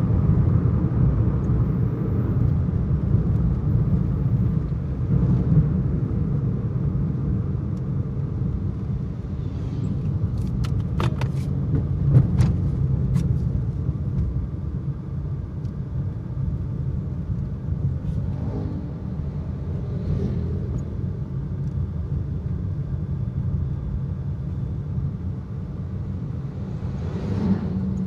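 Steady low road and engine rumble inside a moving car's cabin, with a few sharp clicks about eleven to thirteen seconds in and a brief swell near the end.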